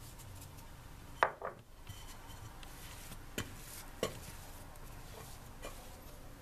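A sharp knock of a bowl against a countertop about a second in, then a few lighter knocks and soft handling as risen yeast dough is tipped and pulled out of the bowl onto a floured counter.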